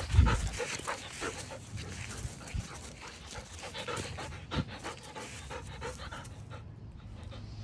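Standard poodle panting from running, in many short puffs, with rustling and a low thump at the very start as it plays close to the microphone.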